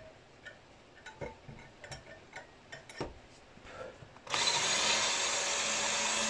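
Ryobi cordless drill running steadily, starting about four seconds in, its bit turning through a hole in the model cylinder block to spot-mark the copper boiler beneath. A few light handling clicks come before it.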